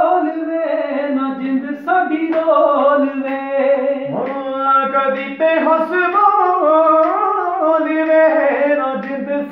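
A man singing unaccompanied in a high male voice, with long held notes and ornamented turns in the melody.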